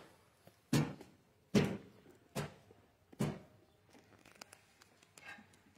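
A regular series of dull knocks, about one every 0.8 seconds: four in the first three seconds, then only a few faint clicks.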